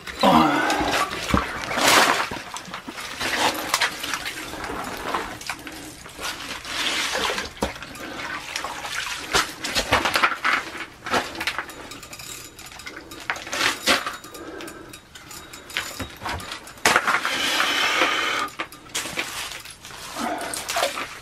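Water sloshing and splashing in an ice-fishing hole in irregular bursts as a hooked brook trout is fought up toward the net.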